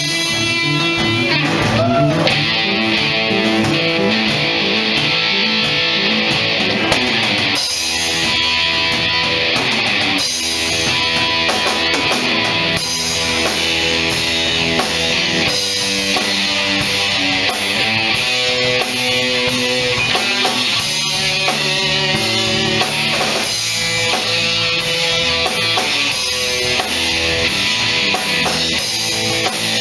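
Live instrumental band music: guitars playing a melody over strummed chords, with drums keeping a steady beat.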